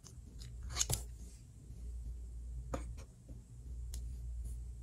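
Plastic Play-Doh stamper clicking as its plunger is pressed and the dough shape pushed out: a quick cluster of sharp clicks about a second in, then single clicks near three and four seconds, over a faint low hum.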